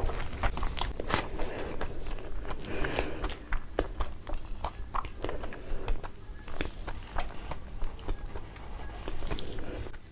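Close-miked chewing and biting of a stuffed frankie wrap: many irregular short wet mouth clicks over soft chewing noise.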